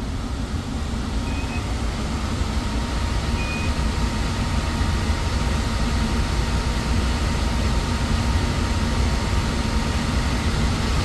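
Trane gas furnace running at low fire: a steady low rumble with a faint hum.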